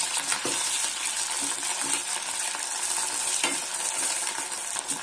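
Potato wedges sizzling steadily in hot mustard oil in a metal kadhai while a metal spoon stirs them. The spoon scrapes and clinks against the pan a few times.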